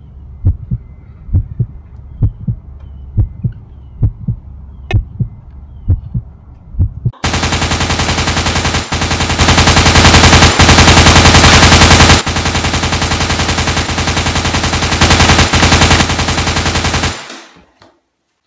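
A heartbeat sound effect, low thumps in lub-dub pairs, for about seven seconds. Then a loud machine-gun fire sound effect starts abruptly, rattles for about ten seconds and cuts off suddenly.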